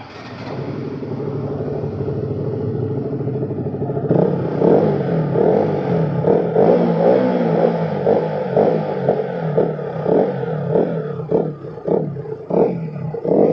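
KTM RC 200's single-cylinder engine revved in neutral. The note rises over the first few seconds, turns louder about four seconds in, then breaks into a quick run of short throttle blips, about two a second.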